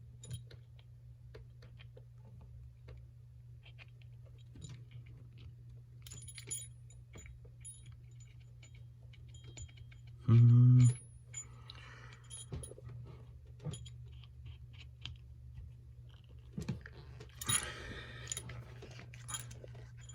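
Small metallic clicks and rattles of a heavy metal trick bolt puzzle being twisted and turned in the hands, over a steady low hum. About ten seconds in comes a short, loud vocal sound, and the rattling gets busier near the end.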